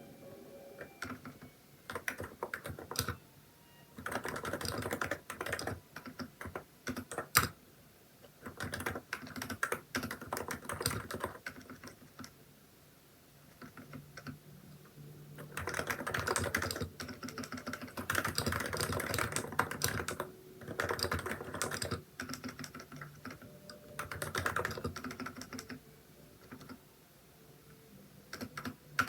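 Typing on a Hansung electrostatic capacitive (Topre-style) keyboard with XDA keycaps: runs of key presses in bursts, broken by short pauses, with one sharper, louder key strike about seven seconds in.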